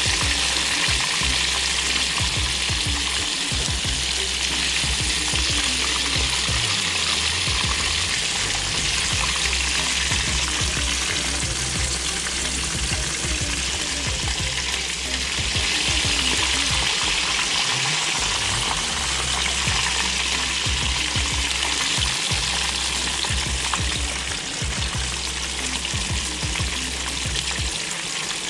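Coated pieces of striped bass frying in a skillet of hot oil: a steady sizzle.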